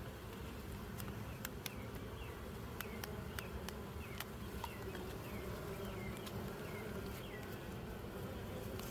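Honeybees buzzing over an open hive: a steady, dense hum from many bees. Scattered sharp clicks and short, high, falling chirps sound over it.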